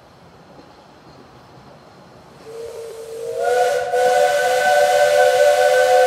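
Union Pacific diesel locomotive's air horn sounding a chord. A single note comes in about two and a half seconds in, the other chimes join it about a second later, and the chord is held loud and steady.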